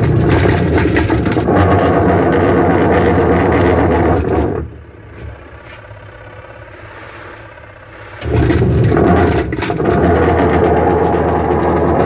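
Manual washing machine's wash motor driving the pulsator through its belt and gearbox. It runs for about four and a half seconds, stops for nearly four, then starts again, a steady hum with a rattling scrape, while the pulsator is held back by hand. It keeps turning against the hand, so the gearbox seems sound, and the noise is taken to come from a loose, worn drive belt.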